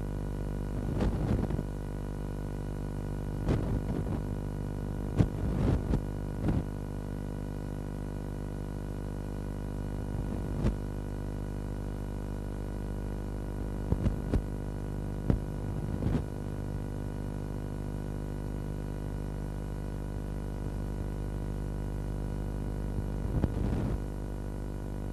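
A steady droning hum with scattered clicks and pops, the surface noise of an old film transfer's soundtrack.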